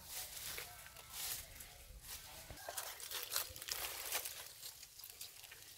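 Dry leaf litter rustling and crackling in irregular bursts as monkeys forage and move through it.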